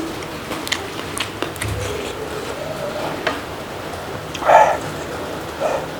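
Small mouth clicks and chewing while eating, then one short, loud hiccup about four and a half seconds in.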